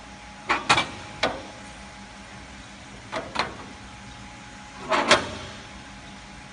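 Sharp metallic knocks and clatters in three bursts, the last the loudest, as an aluminium window profile is handled against the metal bed and fence of a double-head cutting saw. A steady low hum runs underneath.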